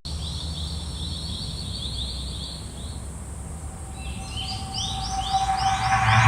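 Rapid, evenly repeated high bird-like chirps, about four a second, over a low steady hum. About four seconds in a second run of two-pitched chirps begins while a rushing noise with a steady tone swells and then cuts off abruptly.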